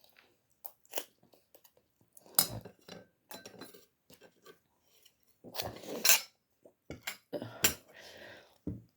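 Cutlery clinking and scraping against a dish while instant noodles are eaten: irregular short clicks, several of them sharp and loud.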